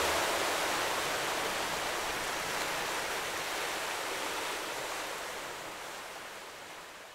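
A steady rushing hiss, like surf or running water, fading out slowly and evenly.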